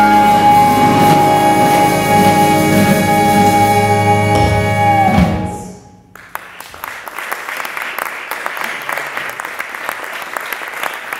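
A large jazz-funk ensemble of horns, strings, guitars and drums holds its final chord and cuts it off about five seconds in. After a brief pause, audience applause starts and carries on.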